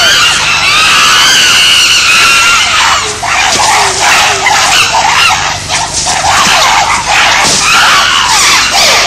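A group of chimpanzees screaming in alarm at the sight of a lion: many loud, high, overlapping shrieks that rise and fall.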